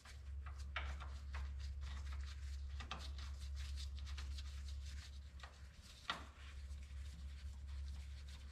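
Connecting-rod cap bolts being screwed in by a gloved hand: faint scattered clicks and rubbing of metal and glove, with one sharper click about six seconds in, over a steady low hum.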